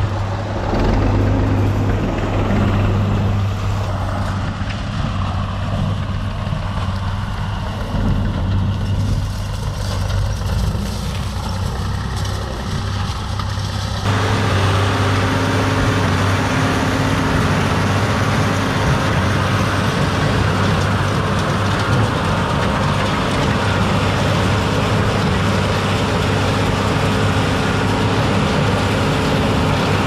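Tractor diesel engines running steadily in the field. In the first half it is an older tractor pulling a wheel rake. About halfway through the sound changes suddenly to the Agri Master 1204's six-cylinder diesel powering a New Holland BB960 large square baler.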